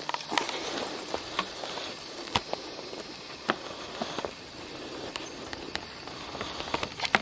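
Footsteps and handling noise of a handheld camera while walking over stone paving: scattered irregular clicks and taps over a steady outdoor hiss.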